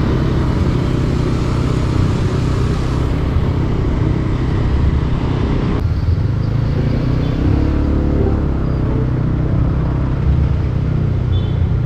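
Motorcycle engine running under way, with steady wind and road noise on the rider's microphone. A second engine note comes up briefly in the second half.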